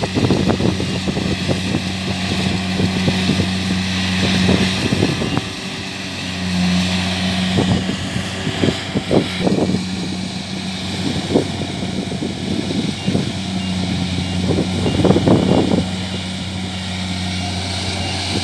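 Kubota DC70 Plus rice combine harvester's diesel engine running steadily as the machine cuts and threshes rice, with a steady whir from the machinery. Irregular low thumps run through it as the machine works through soft, boggy mud.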